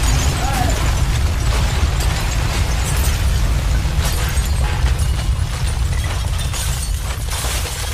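Explosion sound effect: a deep, continuous rumble with scattered cracks of falling debris, fading slowly toward the end.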